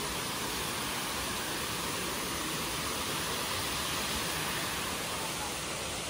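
Water rushing over rocks in a stream, a steady, even rush with no change.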